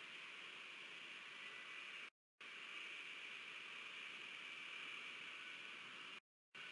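Faint steady hiss from a webcam's microphone, cut twice by brief drops to dead silence where recorded clips are joined.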